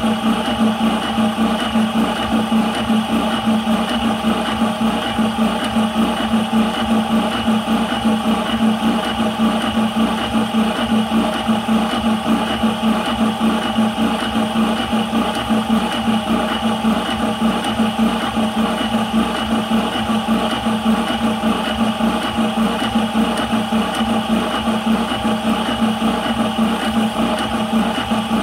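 High-pressure PCP air compressor running steadily with a hum and a fast, even pulsing from its pump strokes. It is filling an airgun's 180cc air cylinder, which is about two-thirds of the way to 200 bar at around 140 bar.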